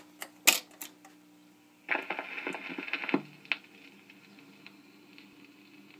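Restored 1954 RCA EY-3 45 rpm record changer mechanism: a few sharp clicks, then about a second of mechanical clatter as the changer cycles, a single click, then faint ticking.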